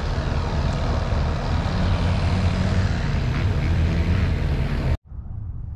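Engine of a piece of heavy equipment running steadily, cutting off abruptly about five seconds in.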